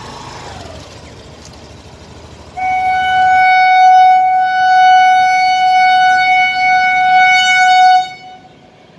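Electric locomotive's horn sounding one long, steady warning blast of about five seconds, starting abruptly a couple of seconds in and cutting off sharply near the end.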